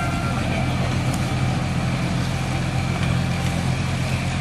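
Miniature park train running past close by, its locomotive engine giving a steady low hum under the noise of the passing cars.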